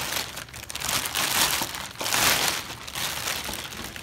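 A large clear plastic bag crinkling and rustling as it is pulled off a toy shaved ice stand, in several bursts, the loudest about two seconds in.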